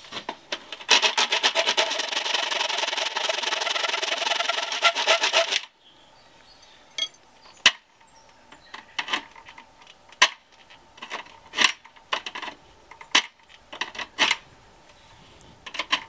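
Hand file rasping across an aluminum storm-door hinge rail to file a worn, damaged section flush. A dense, continuous rasp for about five seconds gives way to separate single file strokes about once a second.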